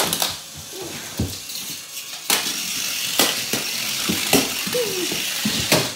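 A puppy's claws clicking and scrabbling on a hard tiled floor as it plays, with a handful of sharp knocks scattered through.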